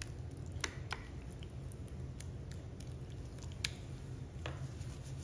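A spoon spreading thick béchamel sauce over lasagna in a glass baking dish: soft wet squishing with four sharp clicks as the spoon touches the dish, over a steady low hum.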